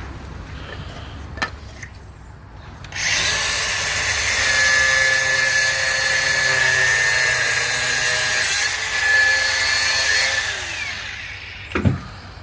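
An electric power tool runs for about seven seconds with a steady high whine and hiss, starting and stopping abruptly. A single thump follows near the end.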